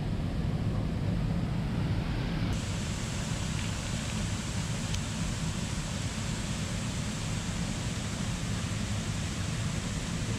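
A steady rushing noise, heaviest in the low end, with no distinct events apart from one faint click about five seconds in.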